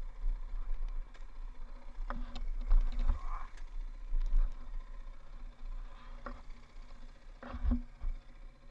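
KTM dirt bike riding over a rough dirt forest trail: a muffled low rumble, with sharp knocks and thuds as the bike jolts over the ruts, a cluster of them about two to three seconds in and more about six seconds in and near the end.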